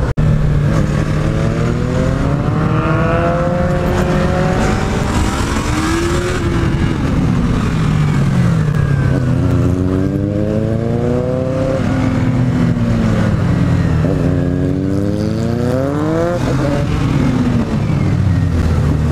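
Yamaha MT-03 motorcycle engine heard from the rider's seat, accelerating hard on the open road. It rises in pitch, drops back and climbs again several times as the rider opens the throttle, changes gear and eases off, with a sharp drop about three-quarters through.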